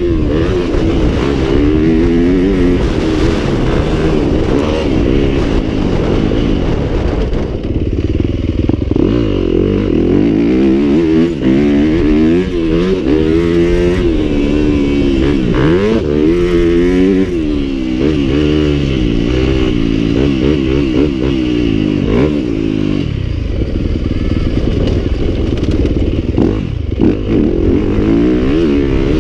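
Yamaha dirt bike engine revving up and down as it is ridden, its pitch climbing and dropping many times over.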